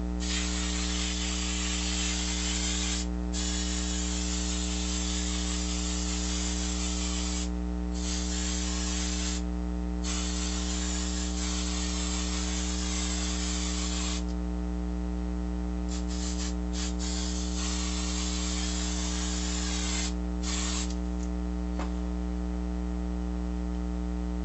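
Aerosol can of spray adhesive hissing in several long sprays with brief pauses between them, then a few short bursts in the second half. A steady mains hum runs underneath.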